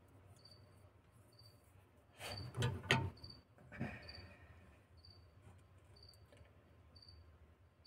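A cricket chirping, one short high chirp about once a second. A few brief rustling noises about two to three seconds in.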